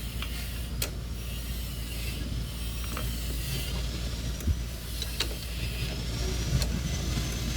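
A few sharp, irregular metal clicks of wrenches working a 10 mm nut on a motorcycle's rear hub, tightened against a second wrench holding the other side, over a steady low hum.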